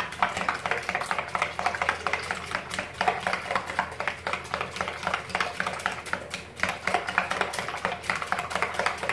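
A wire whisk beating a liquid egg and condensed-milk flan mixture in a glass bowl: rapid, uneven clicking of the wires against the glass, kept up without a break.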